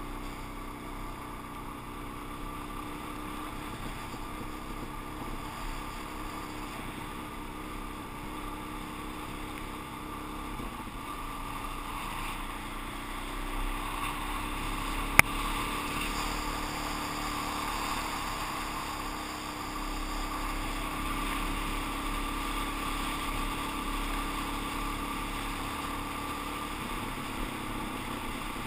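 Suzuki DR-Z400 single-cylinder four-stroke engine running steadily at cruising speed, heard from a camera worn by its rider, with a little wind noise. A single sharp click about halfway through.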